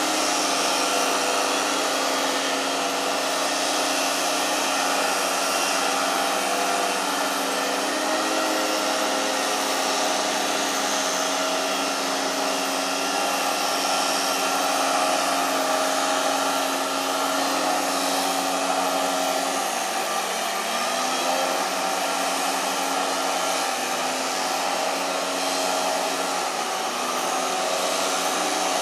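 Loud, steady machine noise: a motor running with a constant hum and hiss, its pitch dipping and shifting briefly about two-thirds of the way through.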